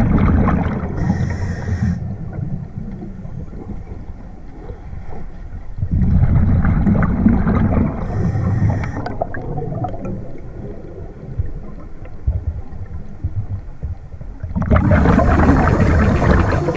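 Scuba diver's exhaled bubbles from the regulator, recorded underwater: three rumbling, gurgling bursts of two to three seconds each, about seven seconds apart, with a quieter low rumble between them.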